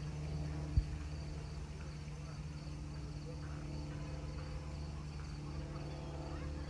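Insects, crickets or katydids, chirping in a faint, evenly pulsing high trill over a steady low rumble, with one sharp click about a second in.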